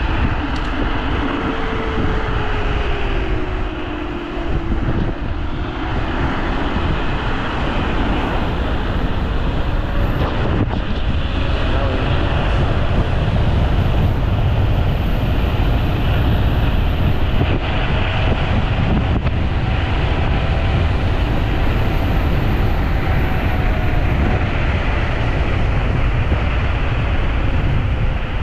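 Strong wind buffeting the microphone over the whine of a Teverun Fighter Supreme Ultra 72 V electric scooter's motors at speed. The whine dips early, rises through the middle as the scooter speeds up, and falls again near the end.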